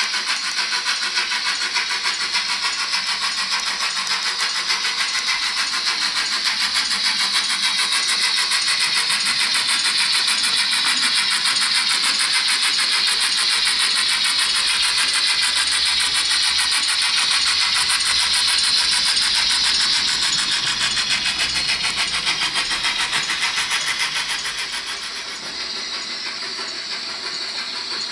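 Sound decoder of a Hornby GWR 28xx 2-8-0 model steam locomotive playing steady, fast steam exhaust beats through a small 28 mm speaker in the tender, thin and without bass. Near the end it drops in level.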